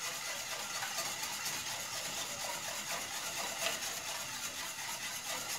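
Wire whisk stirring milk with semolina and sugar in a stainless steel pot: a steady swishing with light taps and scrapes of the wires against the pot.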